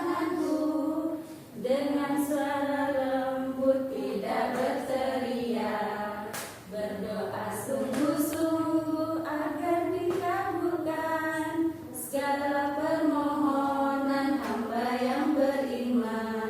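A group of voices singing a song together in unison, unaccompanied, in short phrases of held notes with brief breaths between them.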